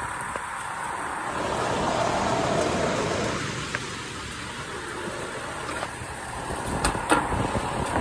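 Carrier outdoor air-conditioner condenser running, its fan blowing air and compressor on, back in operation after a failed run capacitor was replaced; rain falls around it. A rushing noise swells and fades about two to three seconds in, and a few light knocks come near the end.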